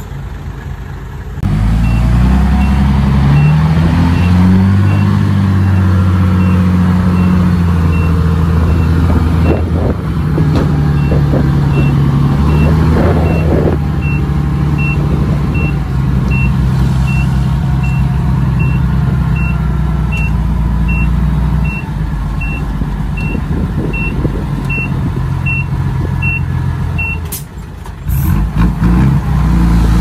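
Diesel dump truck engine revving up and running hard to drive the hydraulic hoist as the loaded bed tips, with a short high warning beep sounding a little more than once a second. Near the end the beeping stops and the engine drops back.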